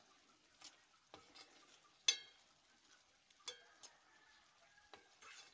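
A metal spoon stirring sautéed sardines in sauce in a metal pan, clinking against the pan a few times. The loudest clink, about two seconds in, rings briefly.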